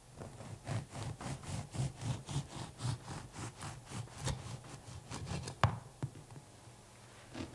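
Bread knife sawing back and forth through a loaf of bread, a steady rasp of about three to four strokes a second, followed by one sharp knock about five and a half seconds in.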